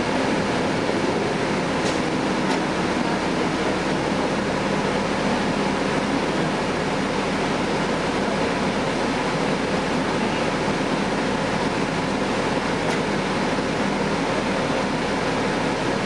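Cabin sound of a 2011 Gillig Advantage transit bus: the Cummins ISL9 diesel running with a steady drone under an even hiss of ventilation and road noise.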